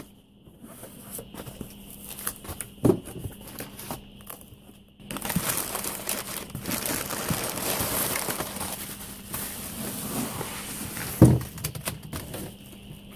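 Crumpled packing paper crinkling and rustling as it is handled and pulled out of a cardboard shipping box. It is preceded by a few light knocks of the carton. Near the end there is one loud thump.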